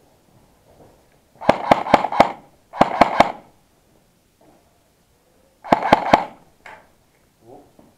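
Airsoft rifle firing three short bursts of three or four shots each: about a second and a half in, around three seconds, and again near six seconds.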